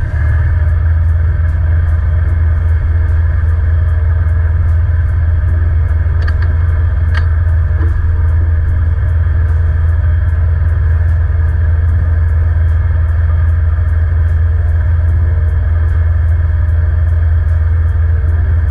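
Sailboat's inboard diesel engine running steadily at low speed during harbour manoeuvring, a constant low rumble with a faint, even ticking on top. A couple of brief clicks come about six to seven seconds in.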